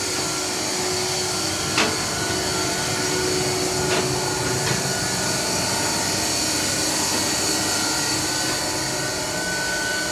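Steady machinery noise in a ship's auxiliary engine room, with freshwater generators, sewage plant and refrigeration compressors running and a high steady whine over the din. A few sharp clicks or knocks come about two and four seconds in.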